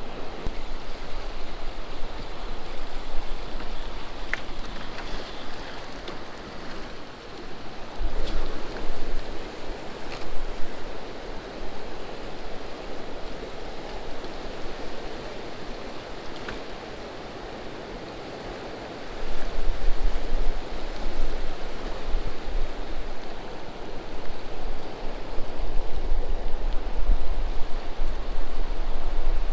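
Wind buffeting the microphone in gusts over a steady hiss of rain and water, with the gusts heaviest about eight seconds in and again from about nineteen seconds on; a few faint clicks.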